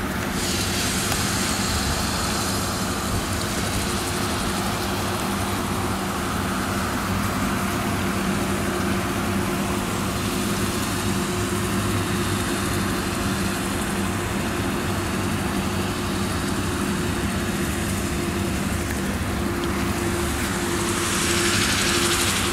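Claas Lexion 760 TT combine harvester running steadily under load while harvesting maize with its nine-row Geringhoff corn header. Over the engine there is a hissing rush of shelled kernels pouring from the unloading auger into a trailer, growing louder just after the start and again near the end.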